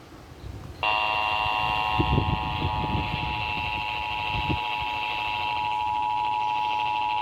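Emergency Alert System attention signal: a loud, steady two-tone alarm that comes on about a second in and holds without a break. It announces an incoming tornado warning broadcast.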